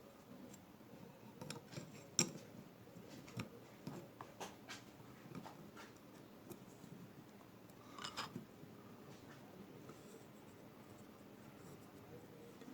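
Faint, scattered small metal clicks and taps from the parts of an old ratchet being fitted together by hand around its pawl spring and rivet. There is a sharper click about two seconds in and a short run of clicks around eight seconds in.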